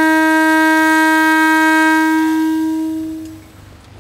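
Train horn sounding one long, steady note that trails off about three seconds in.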